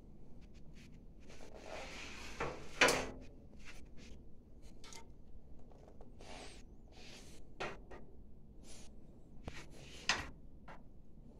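A bicycle being handled and set back among other parked bikes: scattered rattles and clicks with rubbing, and a sharper knock about three seconds in and another about ten seconds in.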